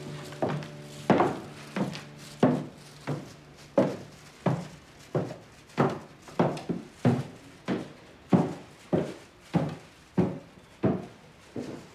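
A steady series of dull knocks or thuds, about three every two seconds, each with a short ringing tail. A low held tone sounds under the first few and fades out about four seconds in.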